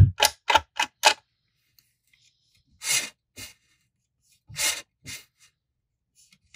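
Short rubbing, scraping strokes of thread and a plastic burnishing tool worked over a thread wrap and snake-skin inlay on a fishing rod blank: about five quick strokes in the first second, then two more pairs a second or two apart.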